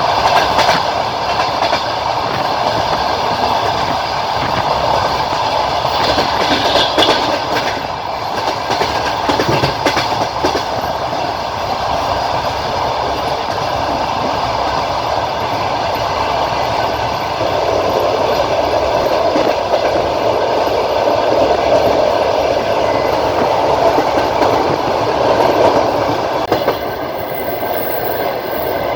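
A passenger train running along the track, heard from aboard the carriage: a steady rumble of wheels on rails, with a few wheel clacks over rail joints in the first ten seconds or so.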